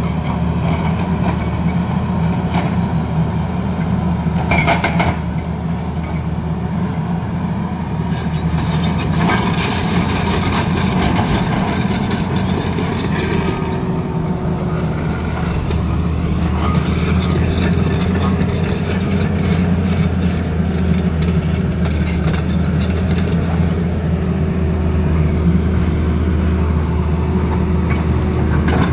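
Hydraulic rock breaker on a Tata Hitachi ZAXIS 220LC excavator hammering rock in spells of rapid blows, over the excavator's diesel engine running steadily under load.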